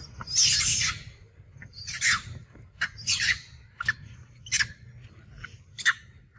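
Long-tailed macaque screaming in distress while pinned and grappled by another macaque. One long shriek just after the start, then a run of shorter, sharp cries every half second to a second.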